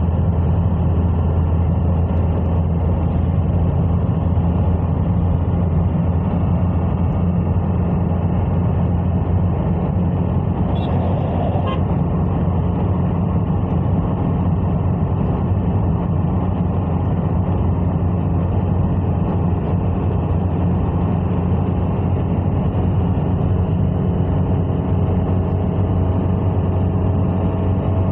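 A car driving along a road, with a steady engine and road-noise rumble and a short higher-pitched sound about eleven seconds in.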